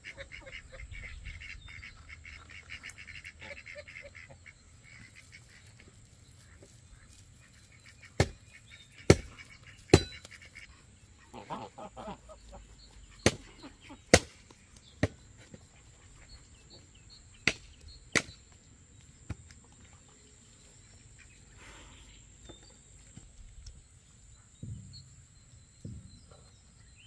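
Hands slapping and patting a large ball of kofta mixture (minced meat, rice and herbs) to pack it, heard as a series of sharp, wet smacks about a second apart in the middle of the stretch. Poultry honking and calling can be heard in the first few seconds.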